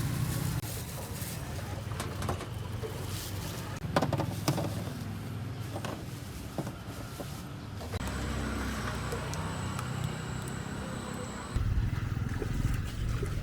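Street-food stall ambience: a steady low rumble with scattered sharp clinks and knocks, and the rumble grows louder near the end.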